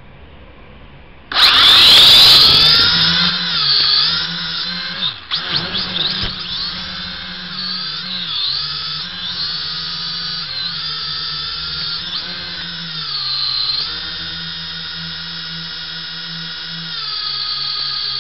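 JJRC H8D camera quadcopter's electric motors and propellers, heard through its onboard camera: they spin up suddenly about a second in to a loud high whine at takeoff, then keep whining with a pitch that wavers up and down as the throttle changes.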